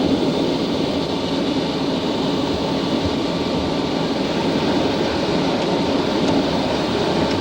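Steady noise of a Concorde slowing on the runway after touchdown, heard inside the cockpit: engines and wheels rolling out, with no sudden events.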